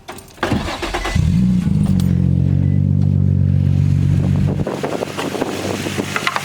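Infiniti G35's V6 engine being started: the starter cranks briefly, the engine catches about a second in with a short rev flare, then settles into a steady idle.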